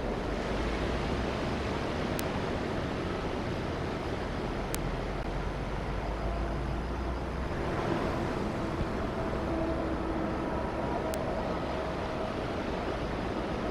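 Train running through the station: a steady rumble, with faint steady tones joining in from about halfway through.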